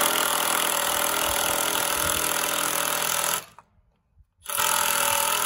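Milwaukee cordless impact driver hammering a screw into a 2x4 wooden frame. It runs for about three and a half seconds, stops for about a second, then starts again.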